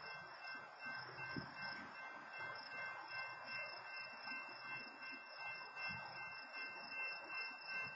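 Railroad crossing warning bell ringing steadily, about two strokes a second, over a faint low rumble from the standing train.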